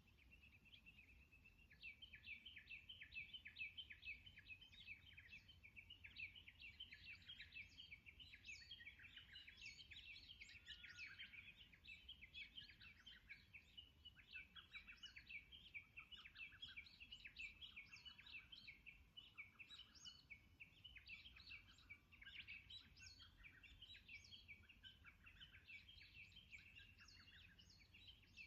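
Wild birds chirping and singing, many quick high notes overlapping in a faint, busy, continuous chorus.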